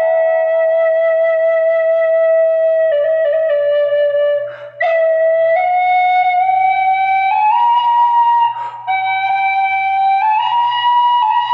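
Celtic flute playing a slow solo melody of long held notes, stepping gently up and down, with two short pauses for breath.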